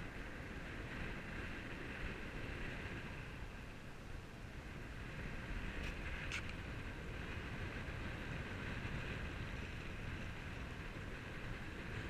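Steady outdoor background: a low rumble under a faint, even hiss, with one short high chirp about six seconds in.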